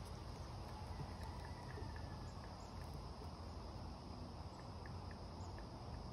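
Steady insect chirring over a low rumble of outdoor background noise, with a few faint short ticks partway through.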